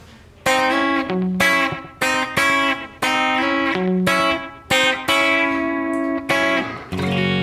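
Suhr T-style electric guitar playing a country chicken-pickin' lick: a run of about a dozen sharply plucked notes and double-stops, starting about half a second in.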